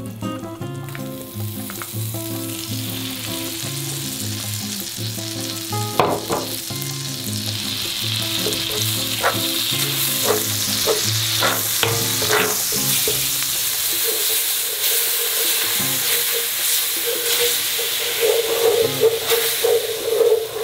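Butter sizzling and foaming in a frying pan over low heat, with flour being stirred into it with a wooden spatula to make a roux. The sizzle builds over the first half, with scattered scrapes and taps of the spatula against the pan.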